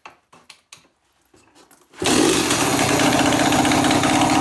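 Freshly rebuilt Yamaha YZ250 two-stroke dirt bike engine being kick-started. It catches about halfway through and then runs loud and steady, with its exhaust pipe not fully fitted.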